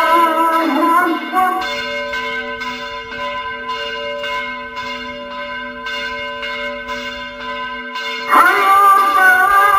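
Soundtrack music: the wavering melody fades out after about a second and a half. It leaves steady held, ringing tones over a faint regular pulse, and the full melody comes back in loudly about eight seconds in.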